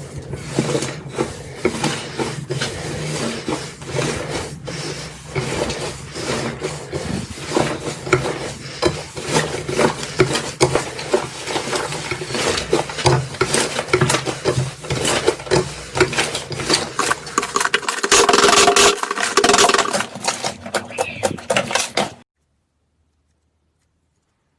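Slime being squeezed and pressed by hand: a dense run of sticky clicks and pops, loudest a little before the end, then cutting off suddenly.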